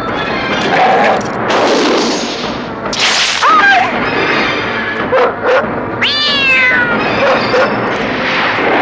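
A cat caterwauling and screeching in a fight with a dog, as a film sound effect. There is a short wavering cry about 3.5 s in and a longer falling screech about 6 s in, between loud bursts of rushing noise.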